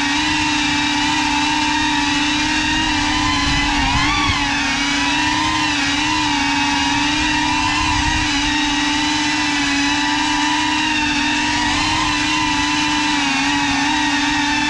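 Cinelog 35 cinewhoop FPV drone's brushless motors and ducted propellers whining steadily in flight, the pitch wavering with the throttle and briefly rising and falling about four seconds in.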